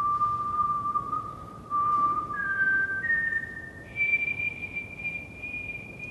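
A person whistling a slow tune: a long held note, then notes stepping upward about two seconds in, ending on a high note held for over two seconds.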